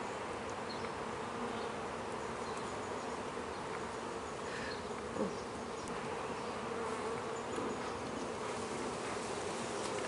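Honey bees buzzing over an open hive: a steady, even hum of many bees.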